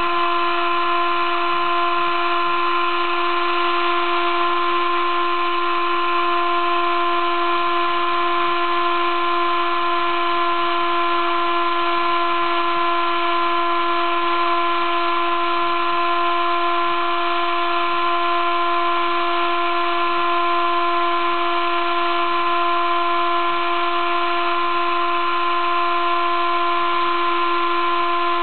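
Sable-2015 desktop CNC mill's spindle running with a steady whine while its 20-degree V engraving cutter cuts shallow letters into an acrylic plate, over a steady cutting hiss.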